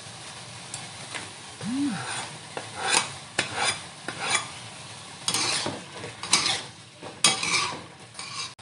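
A spatula stirring and scraping a stir-fry of chicken livers and vegetables in a wok over a steady sizzle. The scrapes come unevenly and grow stronger in the second half.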